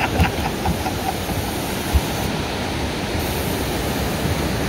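Steady rushing noise of wind and sea water, with a few brief dull knocks.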